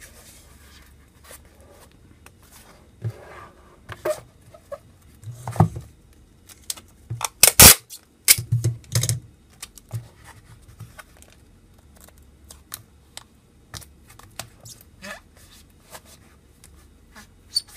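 Clear packing tape pulled off a handheld dispenser and torn off on its teeth, in short scattered rips and clicks, the loudest near the middle. Between them, hands rub and press the tape onto a foam goggle shell.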